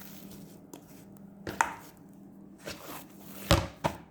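A few short, sharp knocks and taps on a kitchen work surface as things are handled. The loudest comes about three and a half seconds in, with another just after it.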